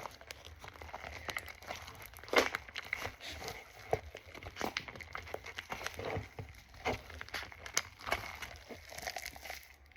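Hands squishing and stretching homemade green foam-bead slime, giving an irregular run of crackles, pops and crinkly clicks, with the sharpest pop about two and a half seconds in.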